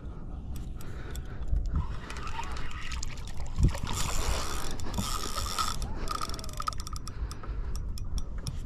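Spinning reel clicking and whirring while fighting a large wels catfish. The fish splashes at the surface about four seconds in.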